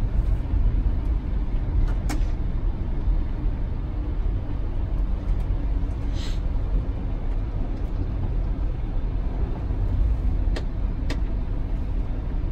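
Steady low rumble of an Airbus A380 flight deck while taxiing, with a few sharp clicks and a brief hiss about six seconds in.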